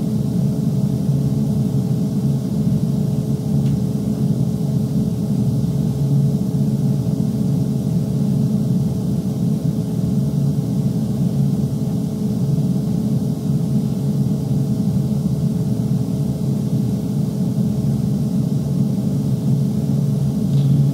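Steady, even mechanical hum with a few steady tones in it, unchanging in level, with a couple of faint clicks.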